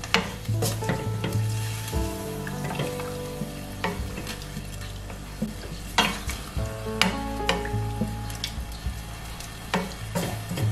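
A wooden spatula stirs beef and onions in a stainless steel frying pan, knocking against the pan now and then over the sizzle of the simmering liquid. Soft background music with held notes plays underneath.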